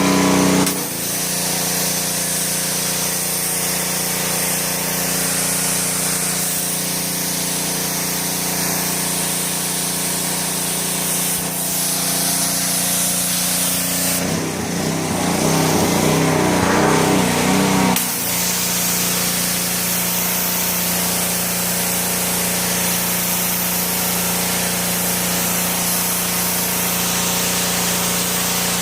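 Pressure washer running steadily, its motor humming under the loud hiss of the water spray. About halfway through, the spray hiss drops for a few seconds while a rougher, lower sound comes up, then the spray sound resumes.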